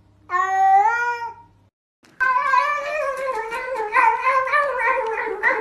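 A domestic cat gives one long meow that rises and then holds its pitch. After a brief silence, another cat makes a long, wavering yowl of about three and a half seconds, its pitch sliding and stepping downward.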